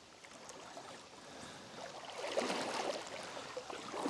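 Faint running water of a small river, a soft steady burble that grows a little louder about two seconds in.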